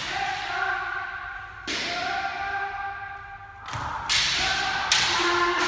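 Kendo sparring: sharp strikes of bamboo shinai on armour and barefoot stamps on the floor, several times, each with a long held kiai shout, echoing in a large hall.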